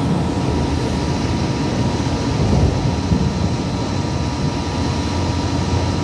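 Cabin noise of a moving light rail car: a steady rumble of wheels on rail and running gear, with a faint steady whine over it.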